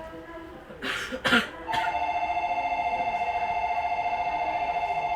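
Station platform electronic departure bell ringing: a continuous two-tone trill with a fast warble that starts a little under two seconds in, the warning that the train doors are about to close. Two short rushing noises come just before it.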